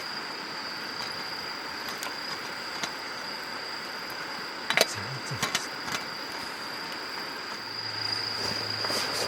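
Wood campfire crackling, with a few sharp pops over a steady hiss and a thin constant high tone.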